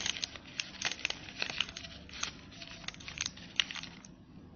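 Newspaper crinkling and crackling in quick, sharp bursts as it is wrapped around a wire doll frame by hand; the crackling stops about four seconds in.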